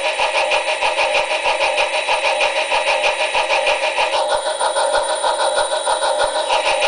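Model locomotive engine sound played through a small 28 mm high-bass speaker with a tube in front of it: a steady, even pulsing of about six beats a second, thin and with little bass. A higher-pitched layer joins for about two seconds past the middle.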